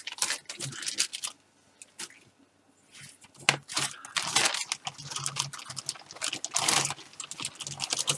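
Clear polythene bag crinkling and rustling as plastic model-kit sprues are handled and drawn out of it, with small plastic clicks. There is a short lull about two seconds in.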